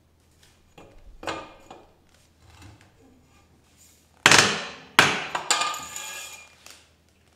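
Metal knocks and bangs from a long steel pipe worked against a car wheel that is corroded onto its hub. There is a light knock about a second in, then two loud ringing bangs a little past four seconds and a second apart, with more clanking after them, which sounds like the wheel breaking loose.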